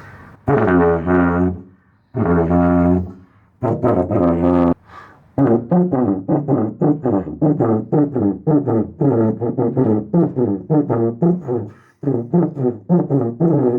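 A tuba with its bell removed, played to test it after dent repair. It sounds three held low notes, then a quick run of short tongued notes that step up and down in pitch.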